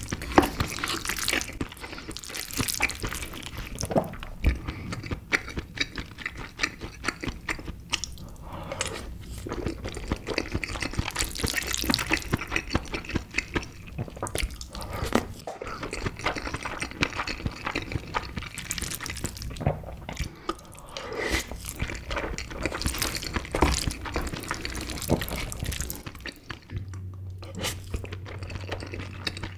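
Close-miked wet, sticky sounds of a wooden spoon stirring and scraping a moist crab-meat mixture inside a king crab shell, mixed with wet chewing and mouth sounds as spoonfuls are eaten.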